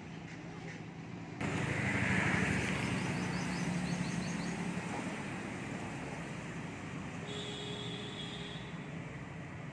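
A motor vehicle running past on a road: a sudden rise in hum and noise about a second and a half in that slowly fades. A quick run of small bird chirps comes a few seconds in.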